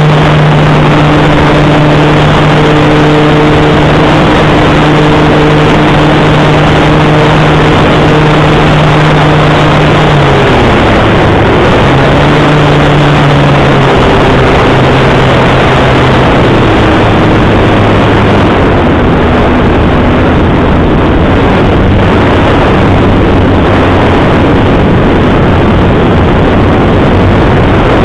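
Onboard sound of an E-flite Air Tractor RC plane's propeller and electric motor in flight: a loud rushing of air from the spinning prop over the microphone, with a humming prop tone that drops in pitch about ten seconds in and again a few seconds later.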